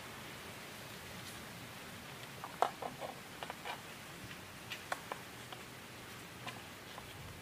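Knife cutting and scraping a piece of salted, dried queen fish on a steel plate: a cluster of short clicks and scrapes about two and a half seconds in, a few more up to about five and a half seconds, and one near the end, over a steady hiss.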